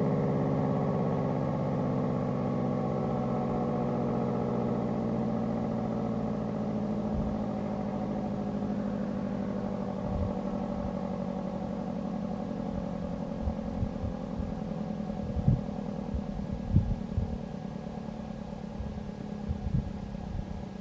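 Federal Signal SD-10 electromechanical warning siren winding down at the end of its alert-cycle test, its tone sliding slowly lower and fading. A few short low thumps come in the second half.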